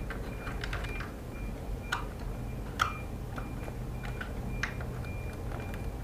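Irregular small clicks and light taps over a steady low hum, with a faint short high tone recurring about twice a second.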